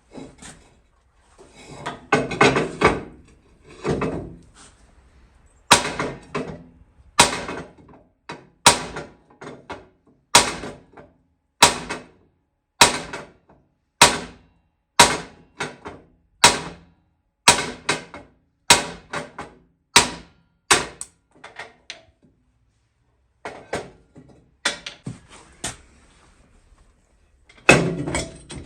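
Repeated hammer blows on steel, about one sharp strike a second, some falling in quick pairs, each ringing briefly: stuck wheel bolts being driven out of a Ford 9N tractor hub.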